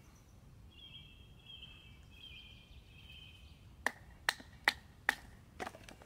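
A high, steady trill lasting about three seconds, then five sharp knocks with a short ring, about half a second apart.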